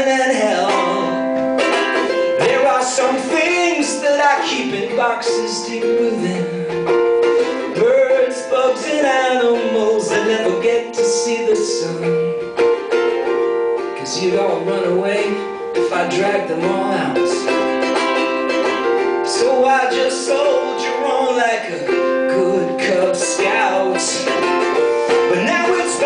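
Live acoustic music: a ukulele strummed steadily, with a held, wavering melody line over it.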